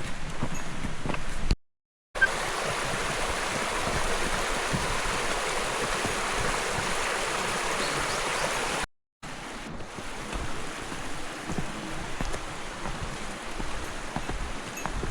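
Mountain stream flowing, a steady rush of water, in a clip that starts and stops abruptly about two seconds in and again near nine seconds. Before and after it, quieter trail sounds with light footsteps.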